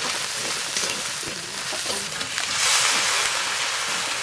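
Onion and spice masala sizzling in oil in a steel kadai while a metal spatula stirs and scrapes it around the pan. The sizzle grows louder about two and a half seconds in.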